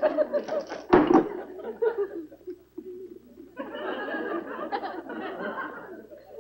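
Studio audience laughing, a dense burst of laughter in the second half. A single sharp thump comes about a second in.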